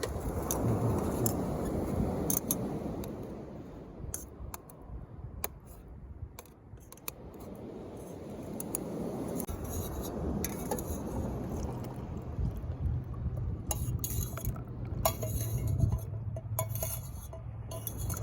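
Light clinks and taps of tableware, glass and metal utensils knocking together, scattered over a steady low background rush.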